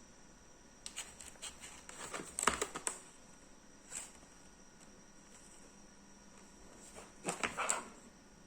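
Clicks and rustles of objects being handled, in a cluster about one to three seconds in, a single click about four seconds in, and another cluster near the end, over a steady faint high-pitched hiss.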